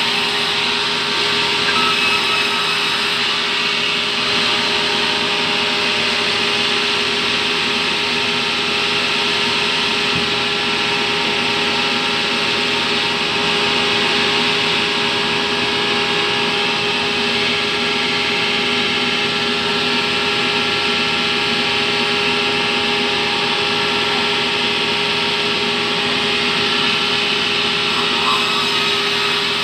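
Sawmill band saw running steadily: a continuous loud drone with several steady tones in it, as the blade saws terap wood.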